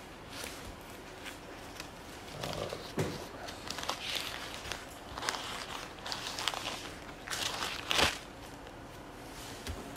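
Thin Bible pages being turned and handled, with irregular paper rustling and small clicks, and a sharp knock about eight seconds in.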